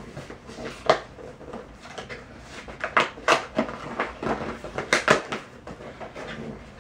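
Product packaging and cables being handled: a string of sharp clicks and knocks with light rustling. The loudest come about a second in and in two clusters around three and five seconds in.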